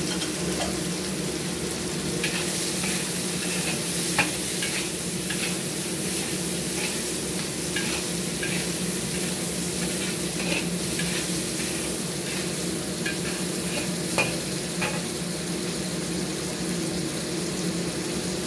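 Prawns sizzling in a hot wok while a metal spatula stir-fries them, with the spatula clinking and scraping against the wok now and then.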